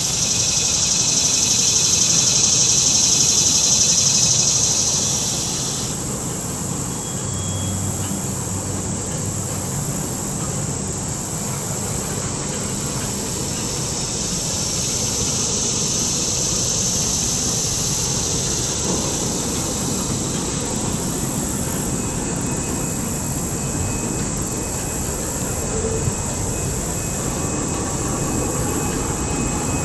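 Freight cars of a passing train rolling steadily across a stone-arch railway bridge, a continuous low rumble. A high hiss swells over the first few seconds and again midway.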